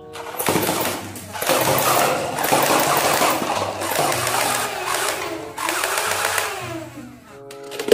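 Toy SCAR-L blaster firing in rapid automatic bursts, its electric mechanism buzzing and rattling, while paper cups are shot down and clatter off the table; it stops about seven seconds in.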